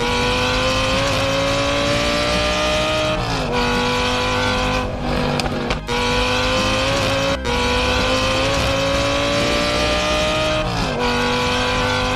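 Racing car engine at high revs, its pitch climbing slowly under full throttle. The pitch drops sharply at an upshift about three seconds in and again near the end.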